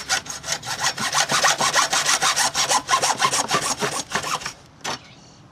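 Hacksaw cutting through PVC pipe with quick back-and-forth rasping strokes, several a second. The sawing stops about four and a half seconds in, followed by a single short knock.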